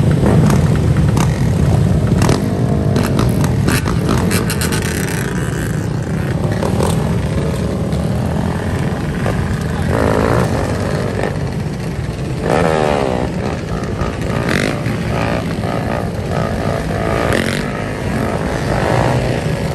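A pack of dirt bikes and sport quads (ATVs) running together, loud throughout, with engines revving up repeatedly as the riders pull away and ride off.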